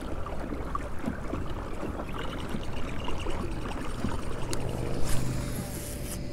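Small fishing boat moving on a lake, water sloshing and lapping against the hull, with a brief louder rustle about five seconds in.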